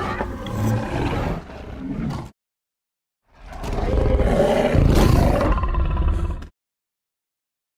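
Indoraptor creature roar sound effects: one call that cuts off about two seconds in, then after a second of dead silence a second, louder roar that swells in and lasts about three seconds before stopping abruptly.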